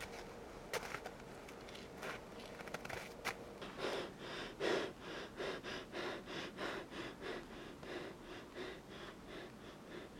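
A man panting in quick, short breaths, about three a second, after a few scattered clicks.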